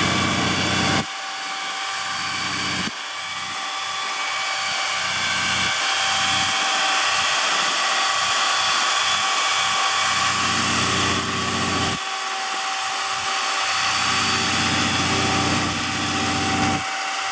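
Peterbilt 357 6x6 water truck driving by with its diesel engine running while its water cannon and spray heads discharge, a steady hiss of spraying water with a steady high whine over it.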